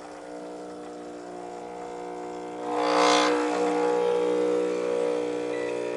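Breville Barista Express's vibration pump humming as it pushes water through the portafilter for an espresso shot. Its hum gets louder a bit under three seconds in, with a brief rush of noise, then holds steady.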